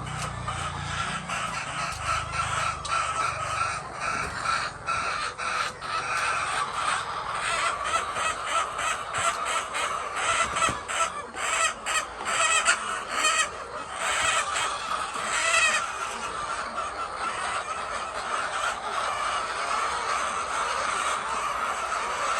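A flock of chickens clucking and calling together, with many short sharp clicks, thickest in the middle stretch.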